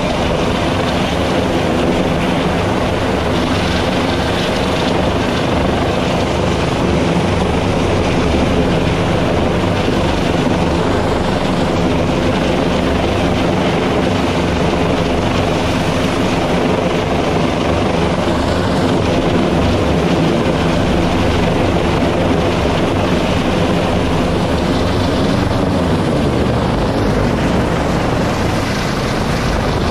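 A U.S. Coast Guard MH-65 Dolphin helicopter hovering close overhead. Its rotors and twin turbine engines run with a loud, steady drone throughout.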